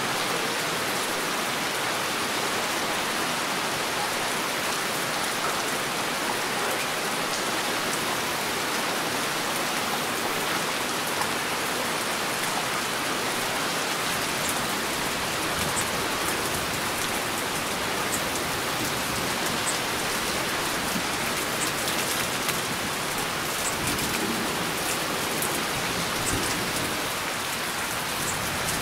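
Heavy rain falling steadily, a dense even hiss, with scattered sharper drop ticks in the second half.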